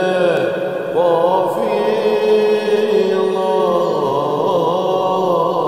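Voices chanting an ilahi, a Sufi devotional hymn, in a slow melody of long held notes that waver and bend in pitch.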